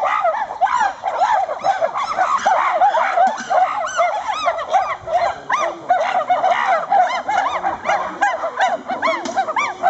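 A chorus of animal calls: many short rising-and-falling hoots overlap without pause, several voices calling at once.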